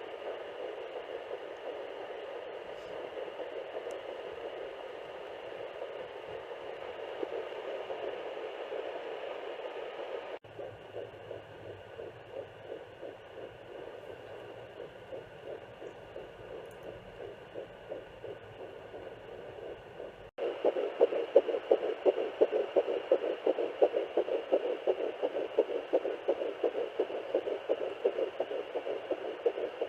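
A handheld fetal Doppler's speaker playing a fetal heartbeat: a fast whooshing pulse of a few beats a second over steady hiss. Three recordings are joined with abrupt cuts about ten and twenty seconds in, and the pulse is loudest and clearest in the last one.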